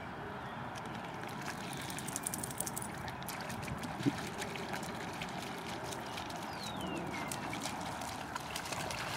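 Water splashing and trickling as a Vizsla puppy and a black dog wade through a shallow muddy pond, with short splashy clicks over a steady outdoor background noise. A brief falling whistle sounds about seven seconds in.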